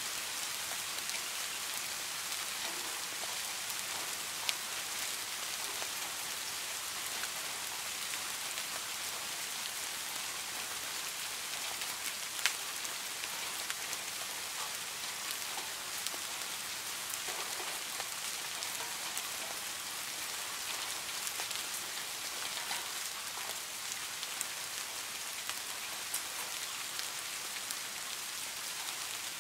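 Steady rain falling on the water of a garden pond: an even hiss of many small drops, with a few louder single drips, two standing out about four seconds in and near the middle.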